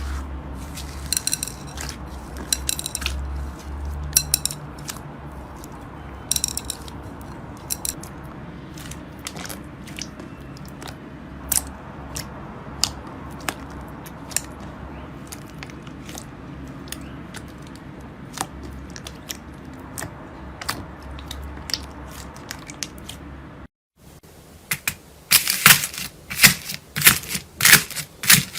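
Slime being pressed and worked by hand, giving scattered sharp sticky clicks and pops over a low steady hum. After a brief break near the end, a denser run of louder crackling follows, typical of crunchy slime being squeezed.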